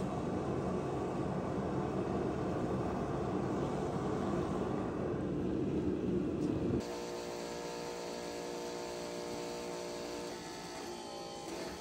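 Shop forge burner roaring steadily while a canister Damascus billet heats. About seven seconds in it cuts abruptly to the steady electric hum of a forging press's motor.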